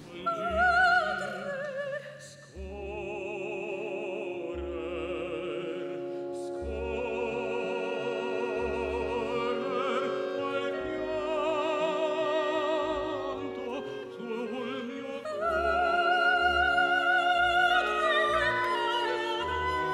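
Operatic singing by a woman, held notes with wide vibrato, over instrumental accompaniment.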